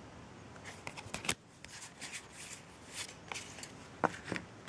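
Pokémon trading cards being handled and shuffled by hand: a series of short, soft slides and flicks of cardstock.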